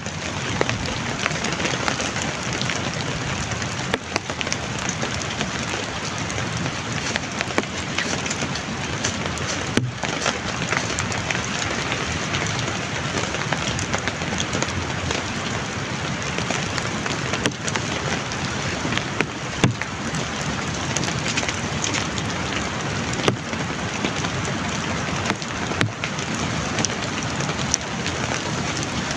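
Heavy rain falling steadily, with many individual drops striking a surface close by.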